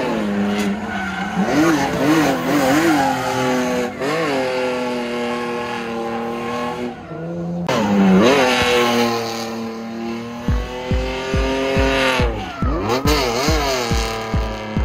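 Drift car engine revving hard, its pitch rising and falling again and again through the slides, with tyres screeching on the tarmac. About ten seconds in, an electronic music beat with a thumping kick drum comes in and speeds up.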